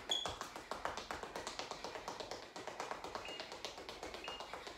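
Rapid running-on-the-spot footsteps: trainers tapping quickly and evenly on a tiled floor, with a few short squeaks.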